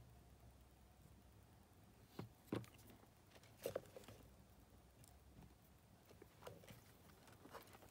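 Quiet handling sounds on a workbench: a few soft knocks about two to four seconds in as a small circuit board is set down on a rubber work mat and a soldering iron is moved, then two fainter taps near the end.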